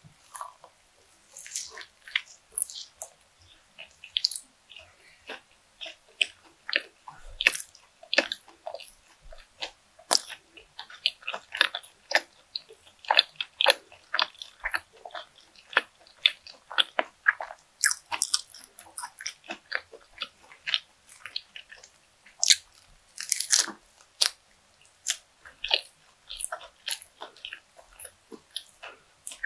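Close-miked biting and chewing of a fried croquette with a breadcrumb crust: a dense, irregular run of crisp crunches and small crackles from the mouth.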